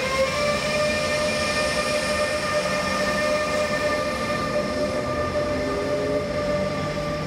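Electric locomotive's traction converters whining, several steady tones held over the rumble of wheels on rail, as the locomotive pulls away under power.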